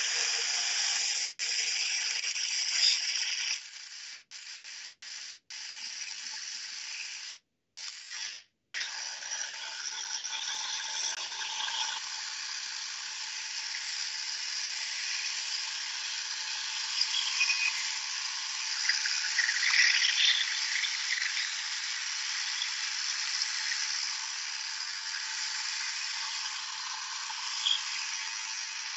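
Mini 1x30 belt sander running with a finer-grit belt while a steel knife blade is held against it, a steady grinding scrape. This is the edge being sharpened further and the burr taken off. The sound cuts out briefly several times in the first ten seconds.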